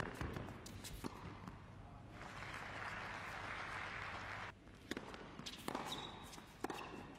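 Tennis rally: sharp pops of rackets striking the ball, then about two seconds of audience applause that cuts off abruptly, then the next point with more racket strikes and a short shoe squeak on the hard court.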